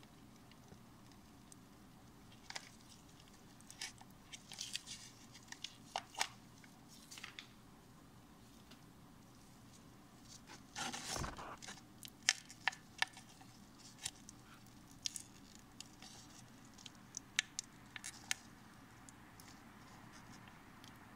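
Clear plastic pack of dates crinkling and clicking under gloved fingers as it is turned and pressed: scattered sharp crackles, with a longer rustle about halfway through.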